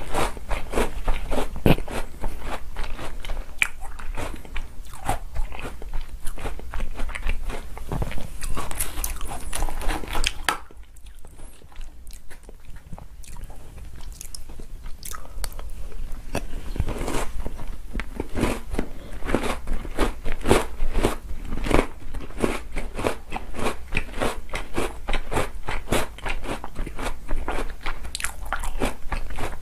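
Close-miked crunching and chewing of chocolate cookies, rapid crisp crackles one after another. They ease off for a few seconds about a third of the way through, then the crunching resumes.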